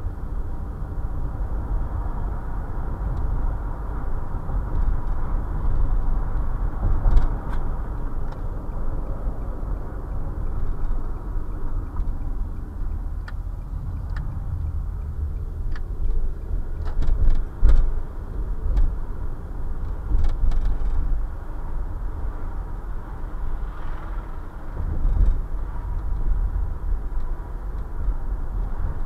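Cabin noise of a car driving on city streets, picked up by a dashcam's built-in microphone. It is a steady low rumble of road and engine noise, with scattered light clicks and knocks through the middle.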